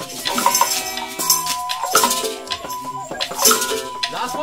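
Free-improvised group sound-making: maracas shaken in irregular bursts over several held pitched tones, with no steady beat.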